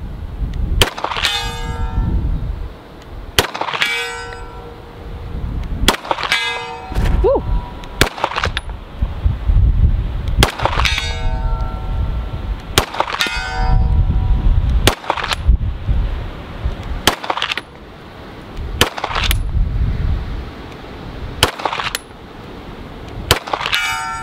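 Arsenal Strike One 9mm pistol fired about a dozen times at a slow, steady pace, most shots followed about half a second later by the ringing clang of the bullet striking a distant steel target. A low wind rumble on the microphone runs underneath.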